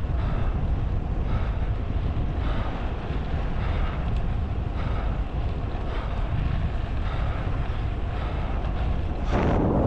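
Wind buffeting the microphone of a camera on a road bike moving at speed during a group ride, a steady low rumble mixed with road noise. A louder rush of noise swells near the end.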